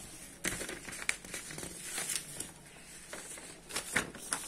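Sheets of paper being shuffled and handled, rustling with several short crackles as the pages are moved and laid flat.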